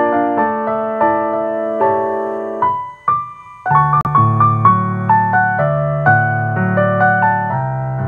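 Solo piano playing a gentle melody over held chords. About three seconds in it thins to one held high note and a short pause, then resumes with fuller low chords.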